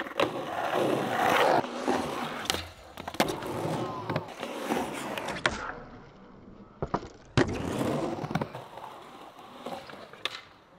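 Skateboard wheels rolling on concrete, with several sharp pops of the tail and slaps of the board landing as flip tricks are done.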